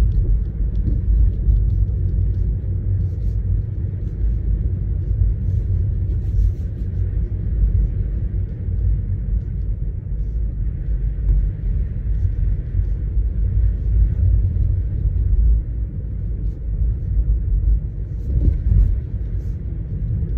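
Steady low rumble of a Tesla's tyres on a wet, leaf-strewn road, heard inside the electric car's cabin, with faint scattered ticks above it.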